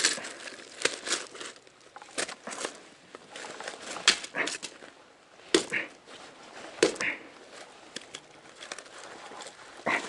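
Small hatchet chopping into firewood to split kindling: a series of sharp, irregular wooden knocks, the strongest about four, five and a half and seven seconds in.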